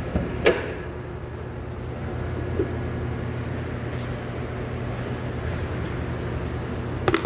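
Lexus IS250's 2.5-litre V6 idling steadily, running on a misfiring cylinder with a burnt valve. A few sharp clicks sound over it: one about half a second in, a faint one a little later, and a short cluster near the end.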